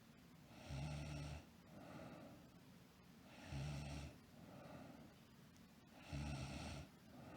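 A sleeping girl snoring in a slow, regular rhythm: three low, rattling snores about two and a half seconds apart, each followed by a softer breath.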